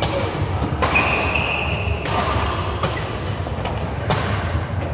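Badminton rally in a large indoor hall: sharp racket strikes on the shuttlecock about every one to two seconds, with a short high squeak about a second in over the steady murmur of the hall.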